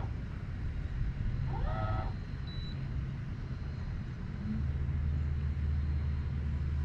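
Minn Kota Riptide 80-lb-thrust electric trolling motor running, a low steady hum that grows stronger about four and a half seconds in as it pushes the unmanned boat away from the dock.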